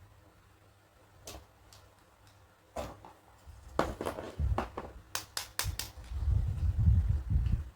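Hands handling the plastic pieces of a toy dentist kit: scattered sharp clicks and taps of plastic, coming faster about half way, with low rumbling handling noise in the last couple of seconds.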